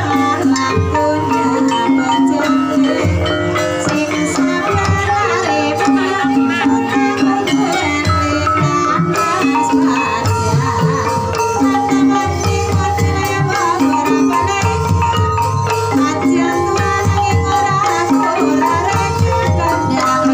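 Live Javanese gamelan playing ebeg (kuda kepang) dance music: brass pot gongs (bonang/kenong) ring out a repeating melody over kendang hand-drum strokes.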